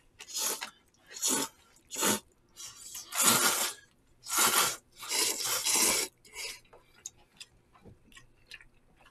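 Noodles of jjamppong being slurped: about six slurps of different lengths, the longest about a second, over the first six seconds. After that, only faint chewing and a few light clicks.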